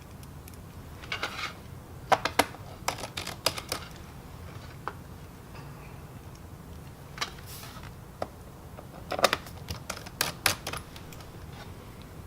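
Small screws being driven by hand into a laptop's plastic bottom panel with a precision screwdriver: clusters of light clicks and ticks, with pauses between screws.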